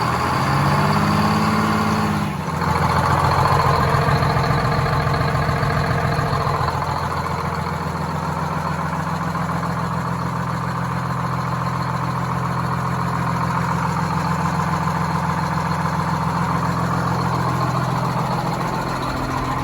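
GM 4104 bus's Detroit Diesel 6-71 two-stroke engine running: its pitch rises briefly in the first two seconds and dips for a moment, then it settles to a steady idle.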